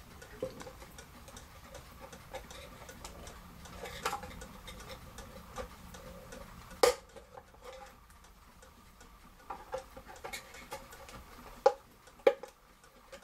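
Irregular sharp clicks and scrapes of a small screwdriver picking dirt out of a cuckoo clock's carved wooden case, over a clock ticking steadily.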